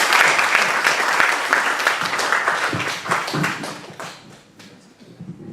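An audience applauding, the clapping dying away about four seconds in.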